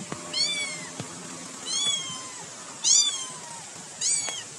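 A cat meowing four times: short, high, arching meows a second or so apart, the third the loudest.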